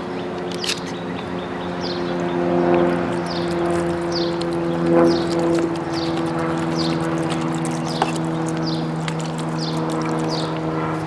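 An engine drones steadily in the background while a bird repeats a short, high, falling chirp about once a second.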